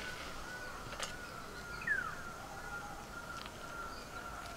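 Quiet background in which a bird gives one short falling whistle about two seconds in, over a faint steady high tone. A few soft clicks come from baking paper being peeled off the bottom of a baked cake.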